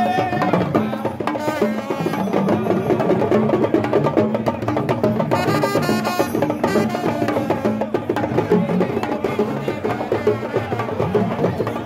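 Traditional drum ensemble playing a fast, dense rhythm on hand drums, with sharp, clicking strikes throughout.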